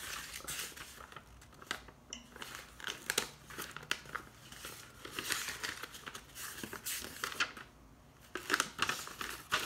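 Paper instruction booklet rustling and crinkling as it is handled, its pages flipped and unfolded by hand, in short irregular rustles with a brief lull about three-quarters of the way through.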